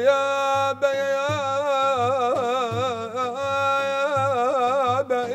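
A solo male voice sings a long melismatic line of Iraqi madih (praise of the Prophet), holding wavering, ornamented notes without clear words, with two brief breaths. Daf frame drums beat low underneath, about two strokes a second.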